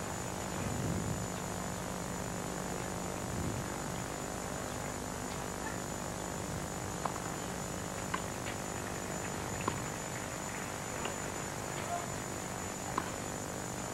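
Tennis ball struck back and forth in a rally on a grass court: faint sharp pops about a second apart through the second half, over steady hiss and a thin high whine.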